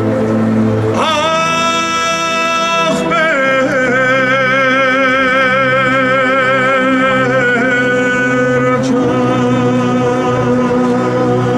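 A man singing long held notes with a wide vibrato over a steady keyboard drone, amplified through a PA. One held note begins about a second in, and a longer one runs from about three seconds to nine.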